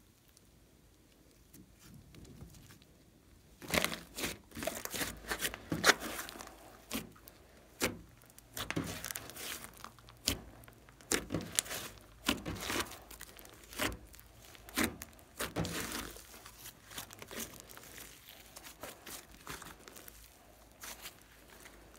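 Thick green slime being kneaded, folded and squeezed by hand, giving sticky crackling and popping. It is quiet for the first few seconds, then comes a dense run of crackles that thins out near the end.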